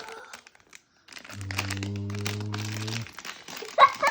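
Plastic toy packaging crinkling and crunching as it is handled and torn open. From about a second in, a steady low electronic tone with several layered pitches sounds for roughly two seconds, then stops abruptly.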